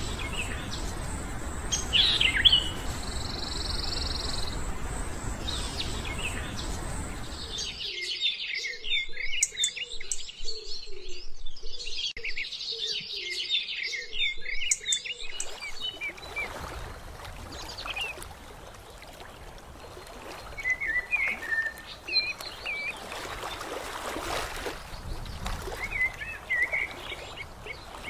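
Several birds chirping and calling, short high chirps and trills overlapping over a steady outdoor background noise. A busy stretch of rapid chirping comes about a third of the way in.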